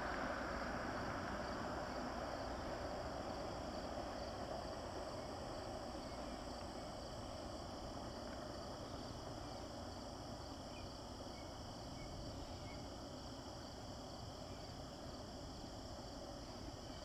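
Steady high-pitched trilling of insects over a low wash of distant noise that slowly fades away.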